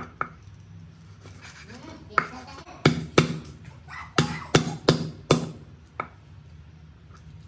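Cleaver striking a garlic clove on a wooden chopping board: about half a dozen sharp knocks in the middle, smashing the clove, with a lighter knock after them.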